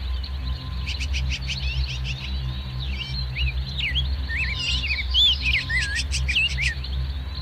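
Small songbirds chirping and twittering in rapid runs of short notes and quick up-and-down whistles, from about a second in until near the end, over a steady low drone.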